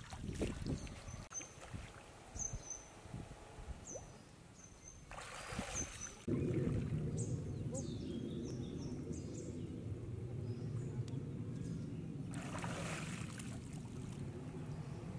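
Pond water splashing and sloshing as a man wades, handles fish and dips under, with a burst of splashing about a second before he surfaces. From about six seconds a steady low rumble sits underneath, and short high chirps come and go.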